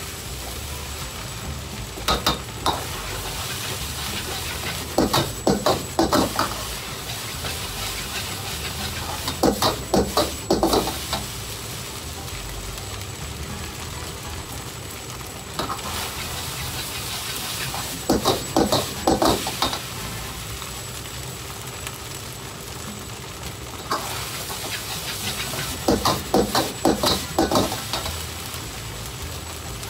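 Fried rice sizzling in a wok over a gas burner, with bursts of quick metal clatter every few seconds as a ladle stirs, scrapes and taps against the wok.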